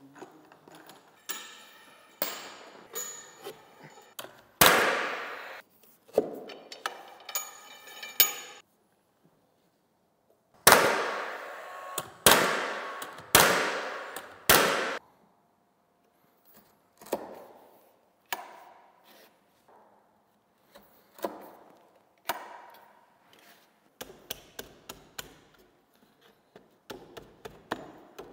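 Cordless nail gun firing nails into a cedar railing, a handful of sharp shots, four of them about a second apart near the middle, with smaller knocks and clinks of the work between.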